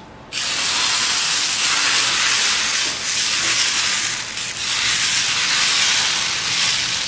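Dosa batter sizzling on a hot iron dosa tawa. The hiss starts suddenly about a third of a second in as the batter is poured, then continues steadily while the ladle spreads the batter in circles.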